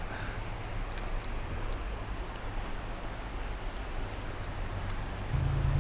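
Steady rush of a mountain creek, with a thin, steady high insect drone over it. A low rumble comes in near the end.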